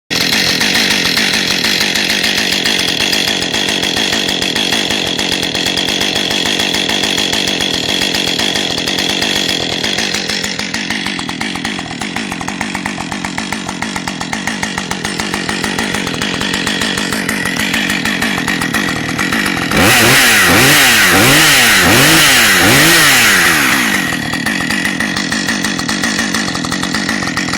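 Husqvarna 545 two-stroke chainsaw engine idling steadily. About two-thirds of the way in it is opened up to high revs for about four seconds, pitch swinging up and down several times, then drops back to idle.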